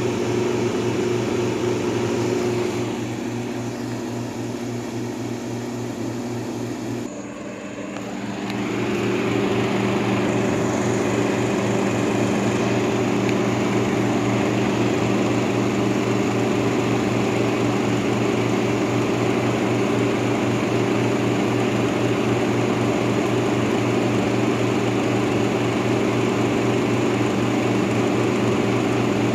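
1958 Carrier 4,500 portable-style window air conditioner running steadily: a low, even compressor hum under the hiss of its fan blowing air. It dips quieter a few seconds in and comes back up about eight seconds in.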